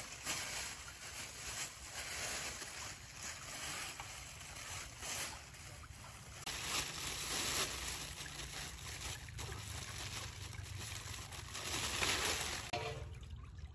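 A thin plastic bag rustling and crinkling as a large fish is pushed into it and the bag is knotted shut, with some wet sloshing from the fish and water in a steel basin.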